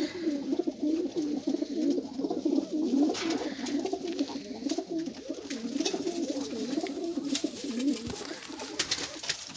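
A flock of domestic pigeons cooing, many overlapping wavering coos with no break, with a few faint sharp clicks among them.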